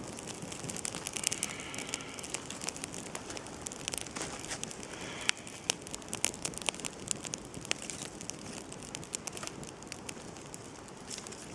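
Small campfire of birch bark and thin dry twigs crackling, with many irregular sharp snaps and pops over a steady hiss.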